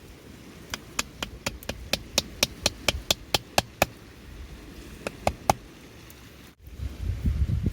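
Light, sharp taps in a steady run of about four a second, a short pause, then three more, like a small hammer or mallet striking a tool. Near the end the sound cuts abruptly to a loud, low rumbling noise like wind buffeting the microphone.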